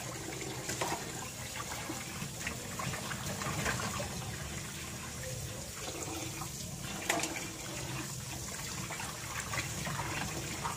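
Tap water running into a metal basin while fish are rinsed and rubbed by hand, with splashing and occasional small knocks against the basin, the sharpest about seven seconds in.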